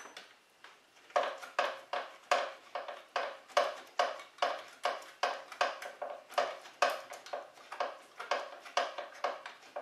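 Sharp metallic clicking about two and a half times a second as a miter saw's reverse-threaded blade bolt is unscrewed with a small wrench.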